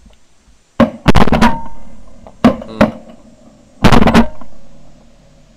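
A quick volley of about five shotgun shots over three seconds from several guns, some louder and closer than others, each ringing on briefly.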